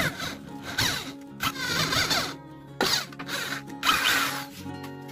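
Handheld electric drill boring holes through a thin sheet-metal box base, in about five short bursts as the bit cuts through. Background music plays throughout.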